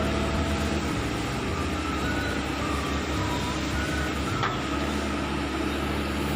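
Hitachi ZAXIS 110 excavator's freshly overhauled diesel engine running steadily, with a thin whine that wavers up and down in pitch and a single knock about four and a half seconds in.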